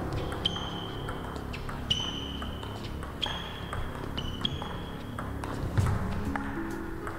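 Table tennis rally: the celluloid ball clicks off the bats and table in a quick back-and-forth, over background music.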